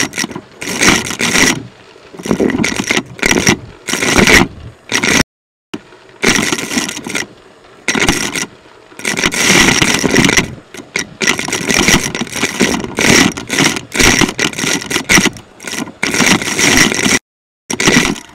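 Vacuum cleaner nozzle and metal wand working through a bin of small hard pieces such as letter tiles and beads: loud, irregular bursts of rattling and clattering as the pieces are stirred and drawn into the wand. The sound cuts out briefly twice, about five seconds in and near the end.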